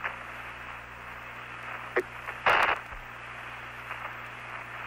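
Hiss and static of the Apollo 11 lunar module landing air-to-ground radio recording, with a low steady hum underneath. A sharp click comes about two seconds in, and a short burst of static follows about half a second later.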